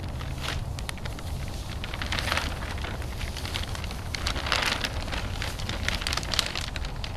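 Black plastic tarp crinkling and rustling in irregular bursts as a dog burrows and pushes about underneath it.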